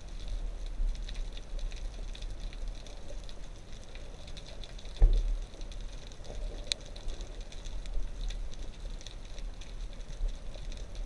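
Underwater ambience: a low, steady rumble of water with scattered small crackling clicks. A single dull thump about five seconds in is the loudest sound.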